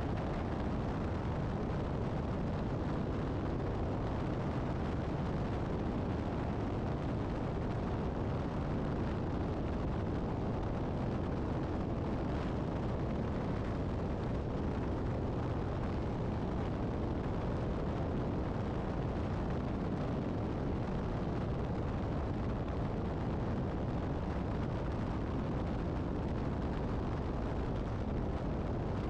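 Steady, low rushing noise of wind and road at highway speed, heard right beside a tractor-trailer.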